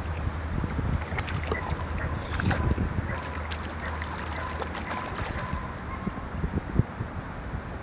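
A hooked trout splashing and thrashing at the surface of a pond, in irregular sharp splashes over a steady wind rumble on the microphone. The loudest splash comes near the end.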